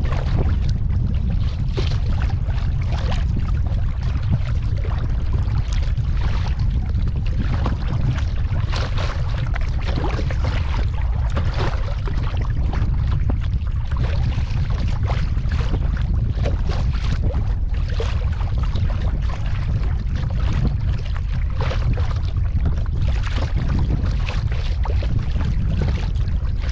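Kayak paddle strokes in the water, a splash and drip about every second, over a steady low rumble.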